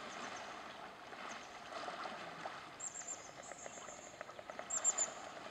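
Muddy river water sloshing and lapping around an Asian elephant as it wades through the pool, with small splashes. A bird chirps high twice, three quick notes each time, around the middle and near the end.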